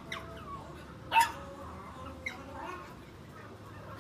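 A dog gives one short, sharp bark about a second in, followed by a much fainter yelp a little after two seconds.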